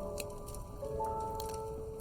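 Slow, soft background music of held notes entering one after another, with scattered light crackles from a wood fire underneath.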